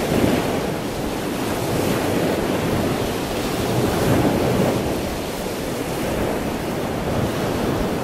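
Steady rush of ocean surf with wind buffeting the microphone.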